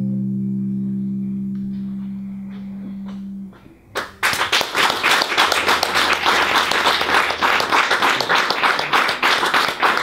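The closing chord of an archtop electric guitar rings and fades away over the first three and a half seconds. About four seconds in, an audience starts applauding and keeps on clapping.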